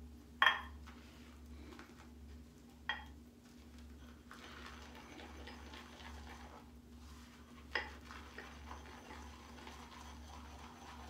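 Shave brush swirling lather in a shaving bowl: a soft, steady swishing with three sharp clinks of the brush against the bowl, the loudest about half a second in, then near three and near eight seconds.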